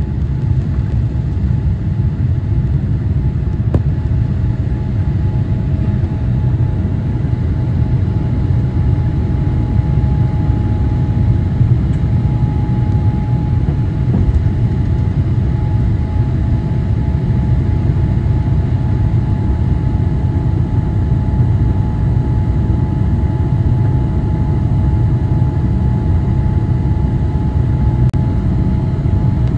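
Steady low cabin rumble of a Boeing 787-8 climbing out under takeoff thrust just after liftoff, heard from inside the cabin. A faint steady hum joins the rumble about halfway through.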